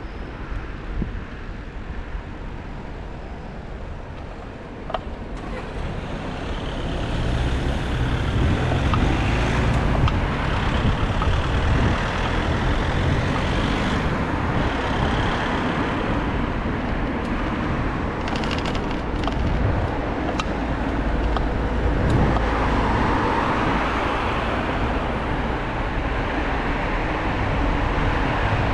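City road traffic: cars and other motor vehicles running past, growing louder about six seconds in and staying steady after that.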